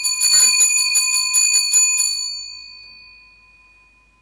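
Altar bell shaken rapidly, about five strikes a second, for some two seconds, then left ringing and fading away. It is rung at the elevation of the chalice during the consecration at Mass.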